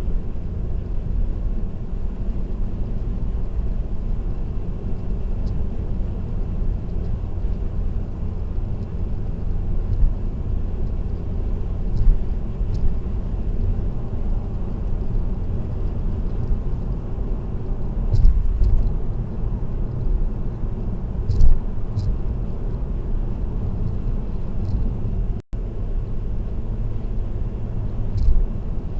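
Steady low rumble of a car cruising on an expressway, heard from inside the cabin through a dashcam: mostly road and tyre noise, with a few short knocks spread through it. The sound drops out completely for a split second about 25 seconds in.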